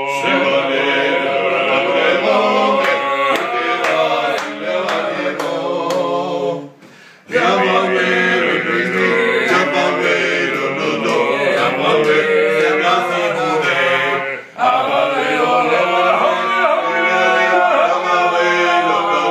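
A group of men singing a Georgian table song a cappella in several voices, with two short breaks between phrases, about seven and about fourteen seconds in.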